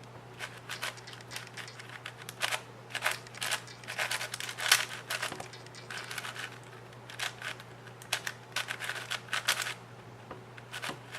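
Yuxin Little Magic 5x5 M magnetic speed cube being turned by hand through a parity algorithm: a run of quick, irregular plastic clicks and clacks as its layers turn.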